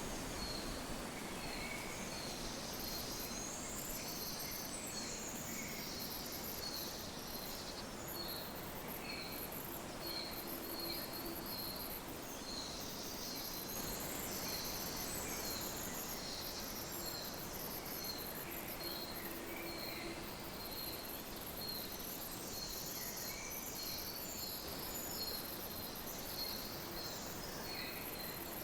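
Steady rushing of a spring river, with small birds singing over it: a short high note repeated about twice a second throughout, and bursts of thin, very high chirps and trills.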